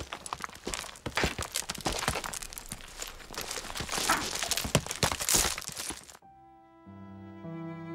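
Loose rocks and scree clattering and crashing with many sharp knocks as a snow leopard and a markhor tumble down a rocky slope. About six seconds in the clatter stops suddenly and orchestral string music begins with long held notes.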